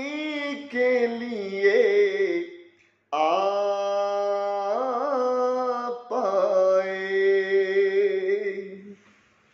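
A man singing a naat unaccompanied, drawing out the words in three long held phrases with wavering pitch and a short breath between them, the last phrase fading out shortly before the end.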